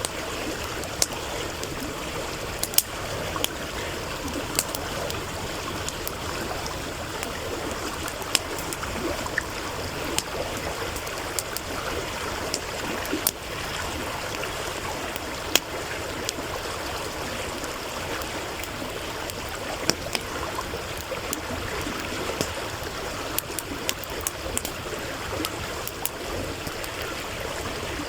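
A stream running with a steady rushing murmur, and a wood campfire crackling over it in sharp, irregular pops.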